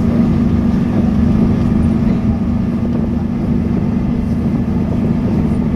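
Steady running noise heard inside a moving bus on a bridge: engine and tyre rumble with a steady low hum.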